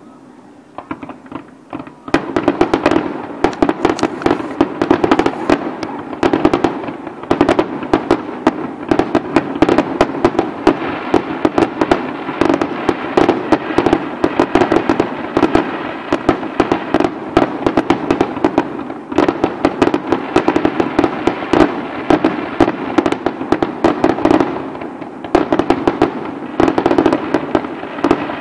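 Fireworks display: a few scattered pops, then, from about two seconds in, a dense barrage of bangs and crackling bursts that keeps going without a break.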